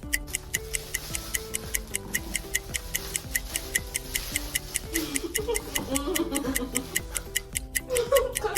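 Background music with a fast, even ticking beat like a clock and a simple melody of held notes. A person's voice wavers in briefly about five seconds in and again near the end.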